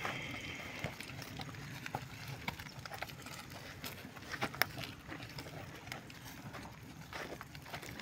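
Cattle moving through wet pasture: irregular soft hoof steps and clicks, with two sharper clicks about halfway through.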